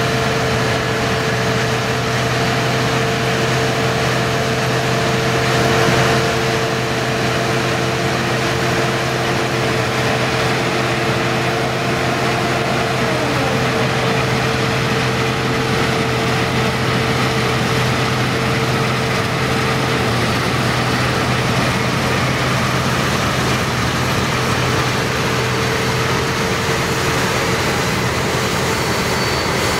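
CLAAS Lexion combine harvester running while cutting wheat and unloading grain, with a John Deere tractor running alongside: a steady machinery drone with a constant whine and low hum. About thirteen seconds in, one of the engine tones drops in pitch.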